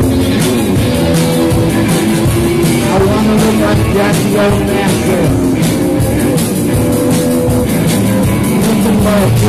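Live rock band playing loud: electric guitar, drum kit and keyboard, with a man singing.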